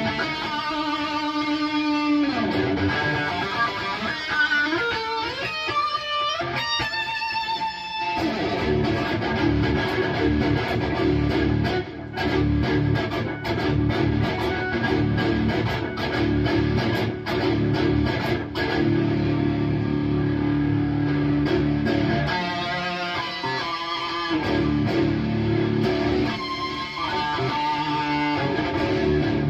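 High-gain distorted electric guitar through a Bogner Uberschall preamp module. It opens with held notes and a lead run with bent, gliding notes, then settles into low palm-muted chugging riffs, with single-note lines near the end.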